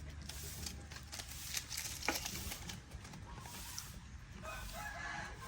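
A short animal call near the end, lasting about a second, after a single sharp click about two seconds in.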